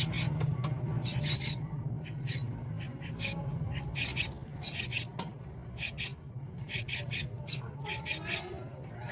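Myna nestlings begging with many short, harsh rasping calls in quick irregular succession, over a steady low hum.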